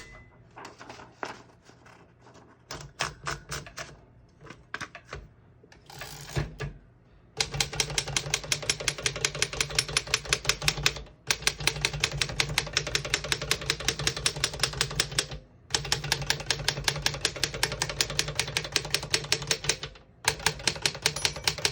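Royal 10 manual desktop typewriter: a few scattered clicks at first, then from about seven seconds in a fast, even run of strikes, about eight or nine a second, pausing briefly three times as the carriage steps along the line.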